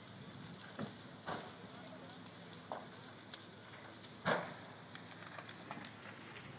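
A large building fire burning with a steady hiss and scattered sharp pops and crackles, the loudest pop about four seconds in.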